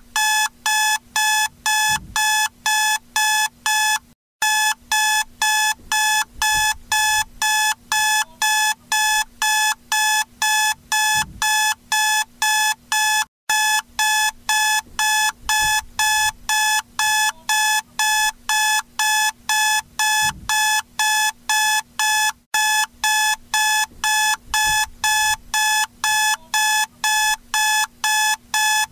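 Electronic alarm clock beeping: a fast, steady train of short high beeps, about three a second, with a brief break about every nine seconds. It is the wake-up alarm that ends a timed nap.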